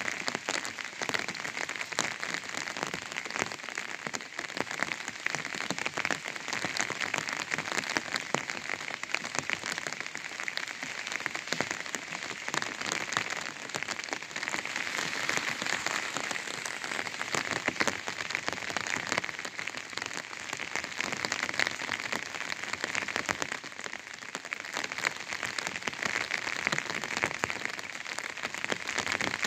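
Rain falling on an umbrella: a steady, dense patter of many small drops striking the taut canopy.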